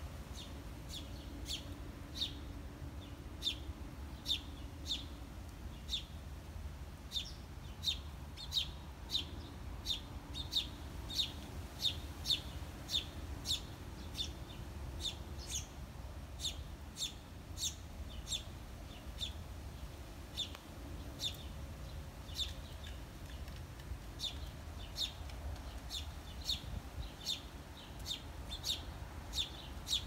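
House sparrows chirping: a string of short, sharp single chirps repeated about one to two times a second, over a low steady rumble.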